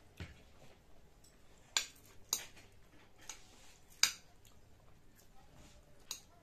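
Eating sounds: a metal fork and chopsticks clicking against plates as noodles are picked up. There are several sharp clicks, the loudest about two seconds and four seconds in.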